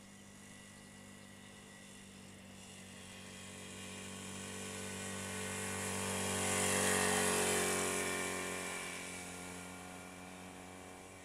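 Historic motorcycle engine running at steady throttle as the bike approaches, passes close about seven seconds in, and fades away, its pitch dipping slightly as it goes by.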